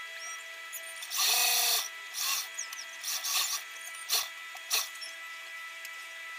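Juki industrial sewing machine stitching in several short bursts, the longest and loudest about a second in, over the steady hum of its motor.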